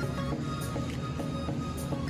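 Background music: held notes over a low bass, with light percussion strokes.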